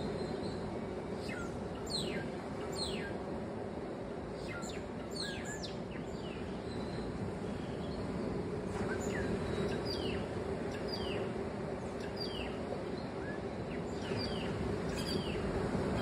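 Birds calling with many short, sharp chirps that each drop quickly in pitch, sometimes several in quick succession, over a steady rush of beach surf.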